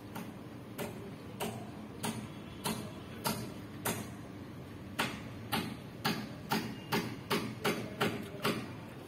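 Metal fork clicking against a ceramic bowl while twirling noodles: a run of sharp clicks, about two a second at first, quickening to about three a second in the second half.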